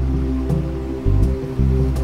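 Background music: held low notes that change about every half second, with a few light percussive ticks.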